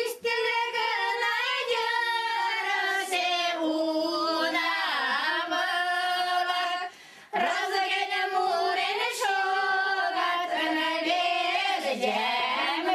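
Women's voices singing a Mari folk song unaccompanied, in long held and gliding notes, with a short breath between phrases about seven seconds in.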